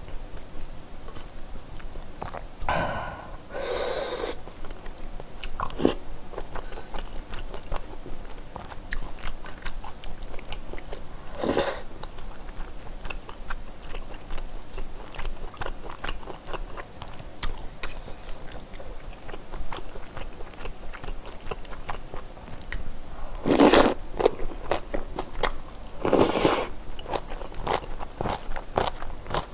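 A person eating up close: continual chewing and crunching of kimchi and noodles, broken by several louder slurps of spicy noodle soup.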